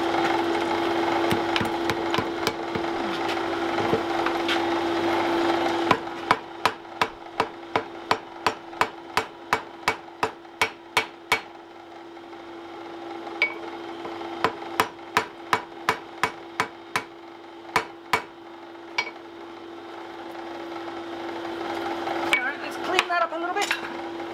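A forge blower runs with a steady hum and fire noise. From about six seconds in come two runs of sharp hammer blows, about three a second, on white-hot wrought iron on the anvil, during forge welding. The blower noise swells again near the end.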